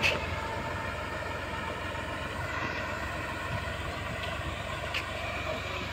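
Tractor engine running steadily as it drives a mounted boom sprayer along the crop rows.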